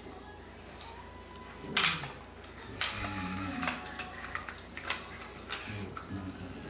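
Plastic toy tractor handled and knocked against a hard tile floor: a few scattered clacks, the loudest about two seconds in.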